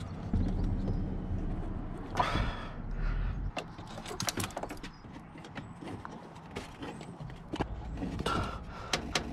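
Hands pushing silicone coolant hoses and a spring hose clip into place on a plastic and alloy thermostat housing: rubbing and scraping with a series of small clicks and knocks, over a low rumble for the first few seconds.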